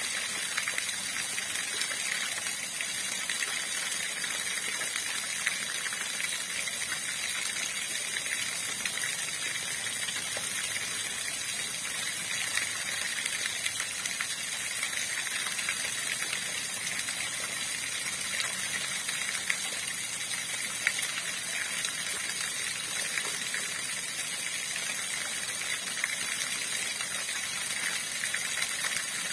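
Running river water rushing steadily, an even hiss of flowing water.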